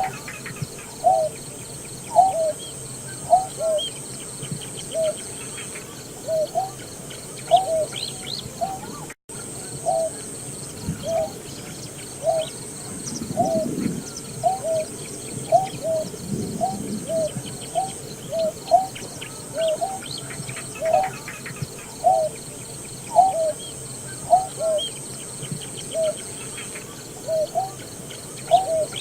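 Greater painted-snipe calling: a long series of short, low, hollow hooting notes, repeated about once or twice a second, often in pairs.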